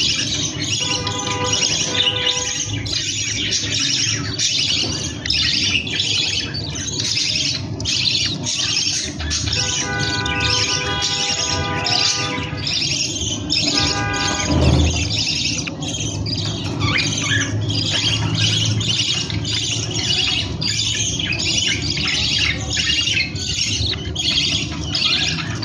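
Pet budgerigars chattering continuously: a dense stream of quick chirps, warbles and squawks.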